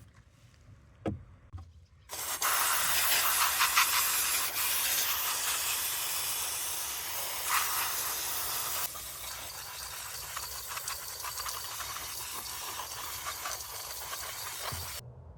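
Blower fan of a Honda N-ONE's heater/air-conditioning unit running: a loud steady rush of air starting abruptly about two seconds in, with a fine crackling rattle through it. It drops somewhat in level about nine seconds in and cuts off near the end.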